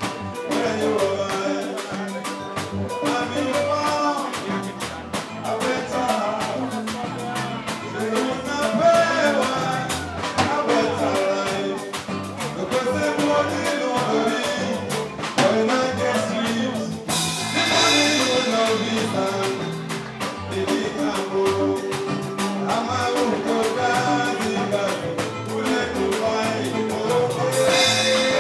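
Live band music: a drum kit keeps a steady, even beat under melodic instruments, with singing over it.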